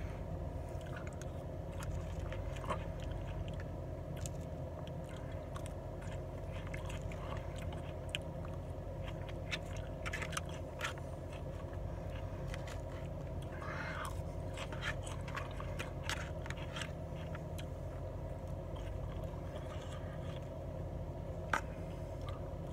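Chewing with scattered clicks and scrapes of a fork against a takeout food container, over a steady low hum in a car's cabin.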